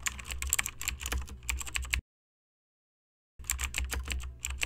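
Computer keyboard typing: a rapid run of key clicks that stops about two seconds in and starts again about a second and a half later.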